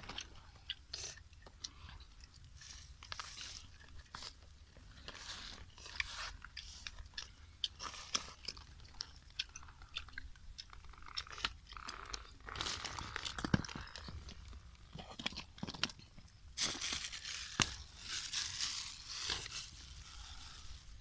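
Small clicks and crunches of cooked freshwater snail shells being handled and the meat picked out with thin sticks, mixed with chewing. A plastic bag rustles for a few seconds near the end.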